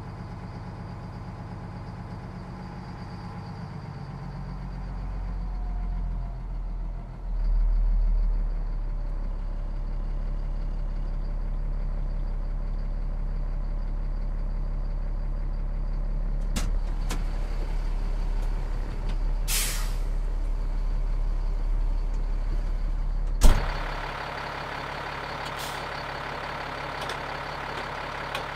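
Caterpillar 3126B inline-six diesel of an M1078A1 LMTV military truck idling while it warms up, heard from inside the cab, its low drone growing heavier a few seconds in. About two-thirds of the way through, the truck's air system gives one short sharp hiss of released air. A few seconds later a sharp knock is followed by a quieter, lighter engine sound.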